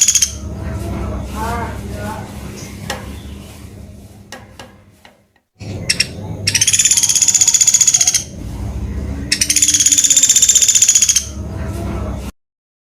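Pelatuk beras woodpecker giving high, rapid rattling trills about two seconds long: one ends just at the start, and two more come about six and nine seconds in. The sound cuts off abruptly near the end.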